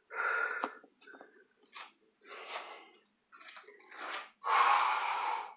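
A person breathing out hard in a series of short, noisy breaths, the longest and loudest near the end.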